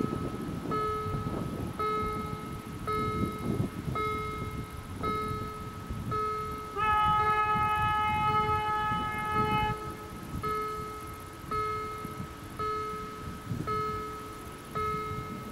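A level crossing's electronic warning bell beeps steadily about once a second. Around seven seconds in, a train horn sounds one long blast of about three seconds over it.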